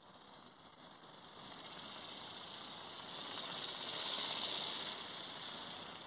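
Remote-control flapping-wing toy bird (ornithopter) whirring overhead: its small motor and beating wings grow louder to a peak about four seconds in as it passes close, then fade.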